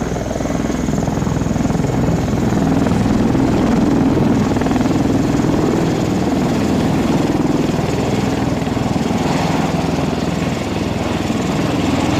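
Aircraft engines running: a loud, steady rumble and hum that neither rises nor falls.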